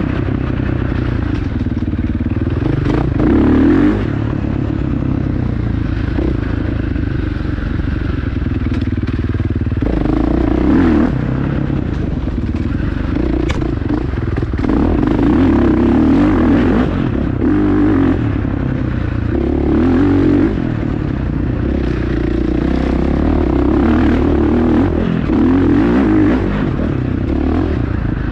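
Dirt bike engine running hard under changing throttle, swelling louder in short bursts every few seconds.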